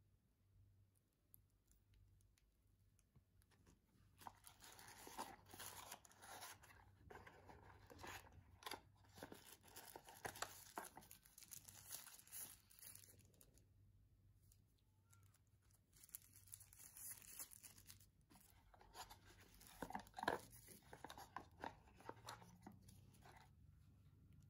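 Quiet crinkling and rustling of thin plastic packaging film as small accessories are unwrapped by hand, in two long spells, the second with a few sharper crackles.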